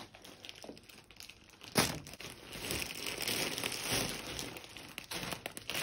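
Plastic packaging crinkling and rustling as it is handled, with a sharp click about two seconds in.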